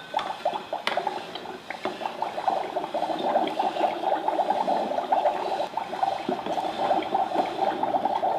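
Magic Mixies toy cauldron giving off a steady bubbling, gurgling sound while a wand stirs the water inside it, with a couple of light knocks of the wand in the first two seconds.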